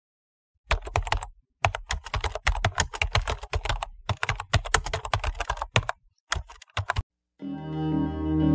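Computer keyboard typing sound effect: rapid runs of key clicks with a few short pauses, starting just under a second in and stopping about seven seconds in. Music starts near the end.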